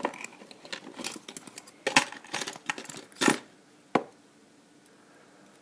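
Small metallic clicks and taps of tweezers and small padlock parts being handled during disassembly, with a few sharper knocks, stopping about four seconds in.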